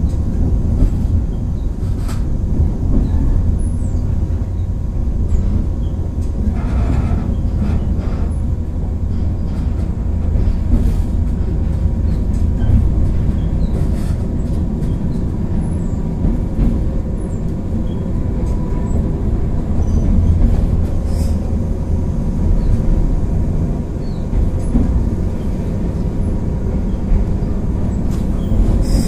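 Resistance-controlled JR West 103 series (3550 subseries) electric train running: a steady low rumble from the wheels and running gear, with a brief higher-pitched noise about seven seconds in.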